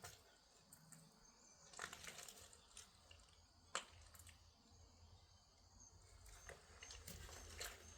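Near silence, broken by a few faint rustles and crackles and one sharp click near the middle.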